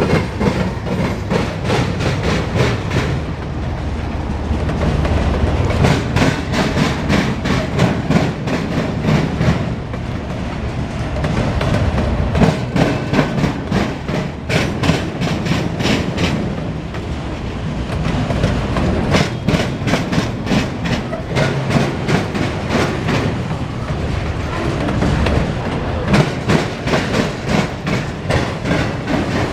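Autorack freight train rolling past, steel wheels clicking over rail joints in repeated clusters over a steady rumble of the cars.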